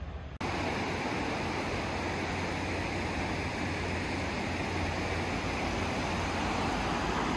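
Steady rushing of a fast, turbulent river flowing beneath a stone bridge, starting suddenly about half a second in.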